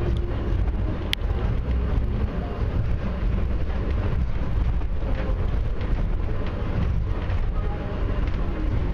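Airport inter-terminal people-mover train running between stations, heard from inside the car as a steady low rumble. A brief high squeak sounds about a second in.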